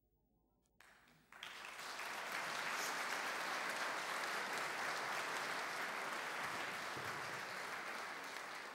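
Audience applauding, starting about a second in after a brief silence and easing off near the end.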